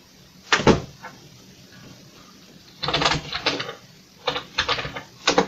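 Typing on a Commodore VIC-20's mechanical keyboard: clicking keystrokes in short runs, a couple of loud ones about half a second in, then several quick runs from about three seconds in.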